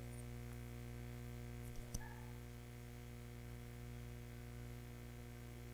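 Steady low electrical mains hum with a stack of even overtones, with one short faint click about two seconds in.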